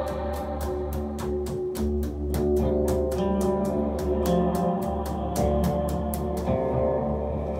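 Improvised live music: held tones and shifting low notes over a quick, even ticking of about four or five beats a second, which stops near the end.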